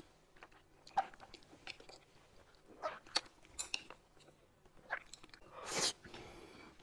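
Close-up eating sounds: people biting into and chewing soft food such as peeled boiled eggs and steamed buns, with scattered small wet clicks. A louder rushing sound comes near the end.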